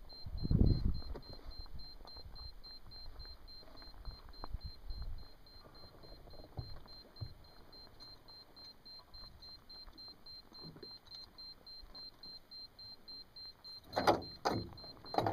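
A high-pitched beep pulsing rapidly and evenly, with low rumbling handling noise in the first few seconds and two or three sharp knocks near the end.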